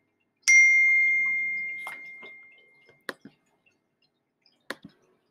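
A single bright chime rings out about half a second in and fades away over a couple of seconds, followed by three short, sharp clicks.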